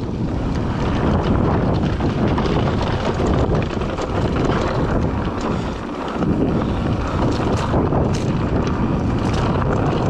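Heavy wind buffeting on the microphone over the rumble and rattle of a mountain bike rolling down a dirt trail, with a few sharp ticks in the second half.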